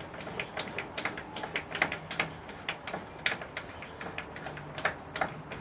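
Motorcycle fork cap on a 25mm cartridge fork kit being unscrewed by hand with an Öhlins cap tool: a run of light, irregular metal clicks, a few a second.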